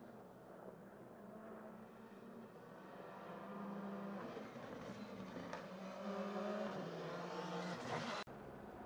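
Rally car approaching on a closed stage, its engine note rising and dropping through gear changes and growing louder, then cut off suddenly a little before the end.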